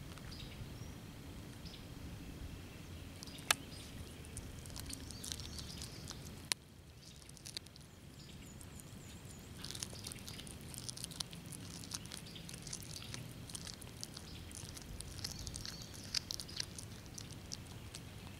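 A cat chewing a dead chipmunk: irregular small wet clicks and crackles of teeth on flesh and bone, thickening after the first few seconds, with two sharper single clicks in the first seven seconds.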